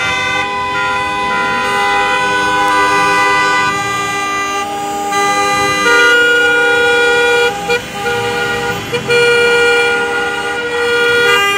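Many car horns of a passing car convoy honking at once, several steady held tones overlapping without let-up. There are a couple of short breaks about two thirds of the way through.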